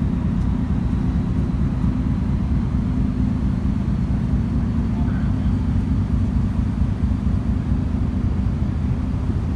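Steady low rumble of ship's engines or machinery running, an even drone with a faint steady hum.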